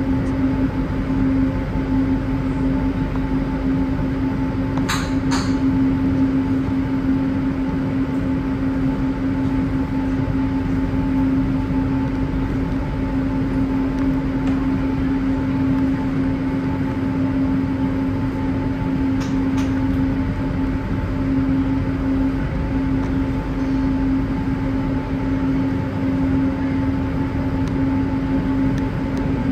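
Inside an Alstom NS-93 rubber-tyred metro car running at steady speed: a constant low rumble with a steady whine. Brief clicks come about five seconds in and again near twenty seconds.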